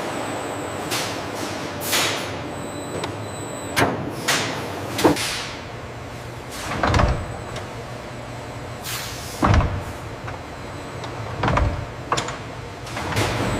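Factory machinery in a cheese plant: a steady hum and a high whine, with a string of separate clunks and swishes one every second or two. The loudest come about four, five and nine seconds in.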